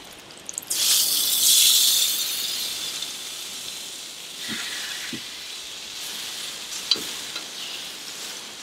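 Raw wagyu steak laid on the hot flat griddle plate of a gas grill, sizzling sharply from about a second in, with the sizzle then slowly dying down. A few light clicks of metal tongs against the plate come later.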